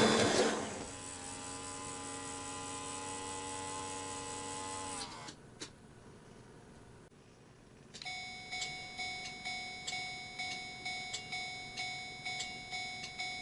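Model railroad crossing's electronic warning bell. It rings steadily, then sags in pitch and cuts off about five seconds in. A single click follows, and about eight seconds in the warning starts again as a ringing tone with a sharp tick about one and a half times a second.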